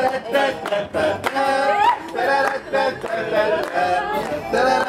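Background music: a song with a singer's voice carrying the melody.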